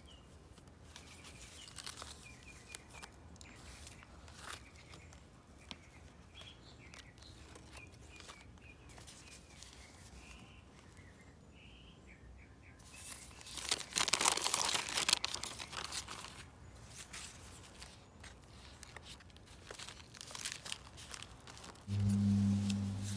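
Paper pages of a handmade journal being handled and turned, rustling softly and then loudly for a few seconds in the middle. A low steady hum starts near the end.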